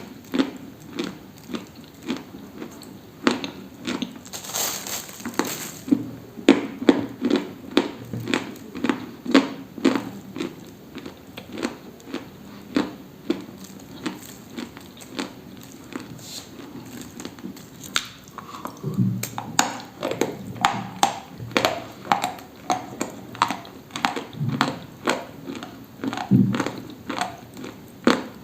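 Dry, brittle crunching close to the microphone: a steady run of sharp crunches about two a second, with a few deeper thuds in the second half.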